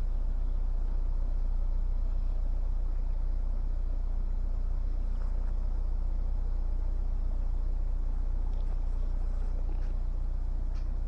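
Narrowboat's diesel engine running steadily at cruising speed, a constant low, even drone.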